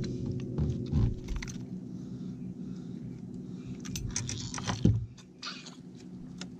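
Knocks as a hooked squawfish (Sacramento pikeminnow) is swung onto the boat, then a cluster of metal clicks and rattles about four to five seconds in as pliers work the lure free of its mouth. A steady low hum runs underneath and stops about five seconds in.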